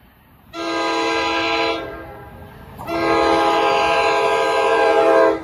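Air horn of an NJ Transit Multilevel cab control car leading an approaching push-pull train, sounding a steady multi-note chord: a short blast, then a longer blast of about two and a half seconds.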